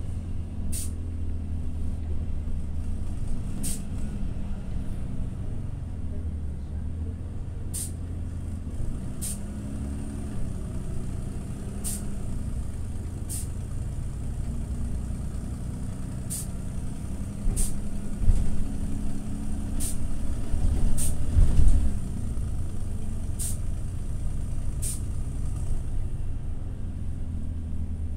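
TCV Karat city bus engine heard from inside the passenger cabin, running with a low rough rumble and a steady drone above it. The owner calls it an extremely broken engine sound. The engine gets louder and heavier for a few seconds about two-thirds of the way in, and short sharp ticks recur every one to four seconds.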